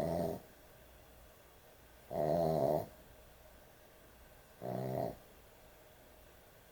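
Dog snoring heavily in its sleep: three short rasping snores, each under a second long, about two and a half seconds apart.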